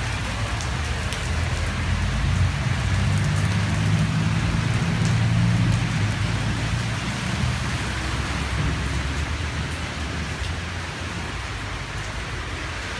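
Heavy rain falling on wet paving and puddles, a steady hiss. A deep rumble swells underneath through the first half or so and then eases.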